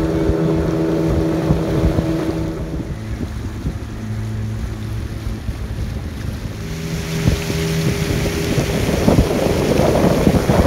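A small boat's engine running at a steady pitch, with wind rumbling and buffeting the microphone. The engine tone fades out after about two seconds and comes back about seven seconds in, and the wind buffeting grows heavier near the end.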